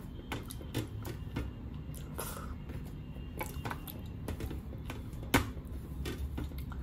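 Fingers scraping and gathering leftover dal from a stainless steel plate, with soft wet squishes and scattered small clicks. One sharper click comes about two-thirds of the way through.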